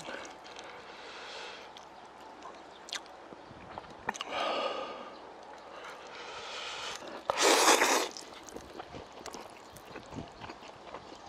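A person eating chewy cold noodles with chopsticks: a breathy puff about four seconds in, then a loud slurp of noodles about two-thirds of the way through, with small mouth and chopstick clicks in between.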